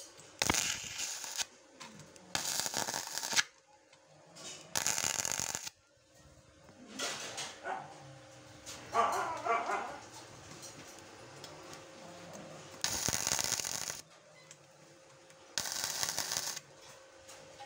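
ANDELI NBC-250 MIG welder's arc crackling on rusty steel bar in about five short welds of about a second each, with pauses between. A dog barks briefly around the middle.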